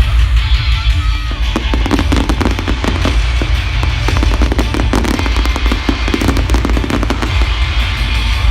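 Fireworks display bursting and crackling in many rapid bangs, with loud music playing alongside.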